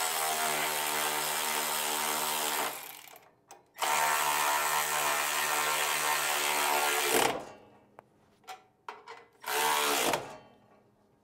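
Cordless electric ratchet running down the nuts on carriage bolts, in two steady whining runs of about three seconds each. After a few light clicks, a short third run comes near the end.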